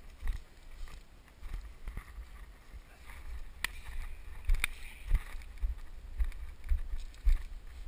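Footsteps on a dirt road, heard through a helmet-mounted action camera as dull thumps about twice a second, with two sharp clicks near the middle.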